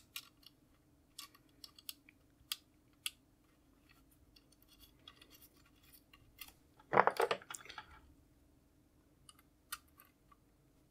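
Small sharp clicks and taps from a floppy drive and its sheet-metal mounting plate being handled while screws are tried, with a louder scraping rattle of about a second, about seven seconds in.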